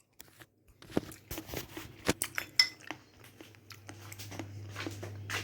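Cutlery clinking and scraping against a plate as food is eaten: a string of small irregular clinks and taps, with a faint steady hum coming in about halfway through.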